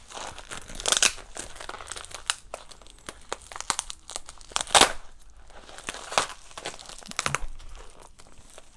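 Tape and wrapping being peeled and torn off a taped package holding a soundtrack CD: irregular crinkling and ripping, loudest about a second in and just before the five-second mark.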